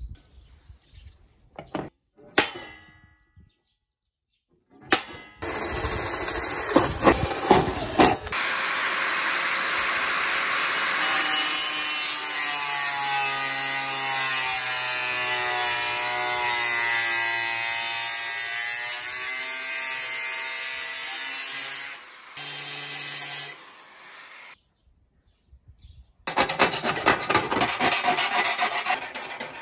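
Angle grinder with a thin cut-off disc cutting through stainless steel sheet: after a few short bursts it runs steadily for about fifteen seconds, its whine dipping and rising in pitch as the disc bites, then makes another brief cut. Near the end come rapid rasping strokes on the freshly cut metal edge.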